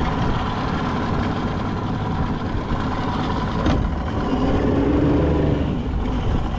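Tohatsu tiller outboard motor running at low speed. There is a single knock a little over halfway through, after which the engine gets a little louder.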